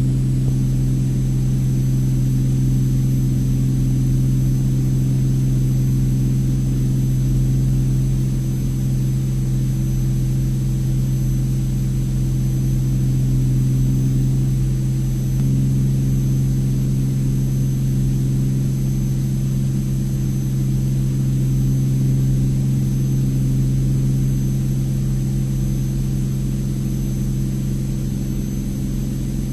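Cabin drone of a Cirrus SR22T's turbocharged six-cylinder piston engine and propeller in a steady climb: a loud, even hum with a slight change in its tone about halfway through.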